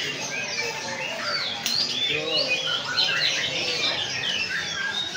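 Many caged birds chirping and calling at once: a dense, overlapping chorus of short chirps and gliding whistles.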